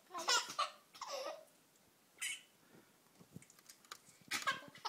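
Six-month-old baby laughing and squealing in short bursts, with quiet gaps between them.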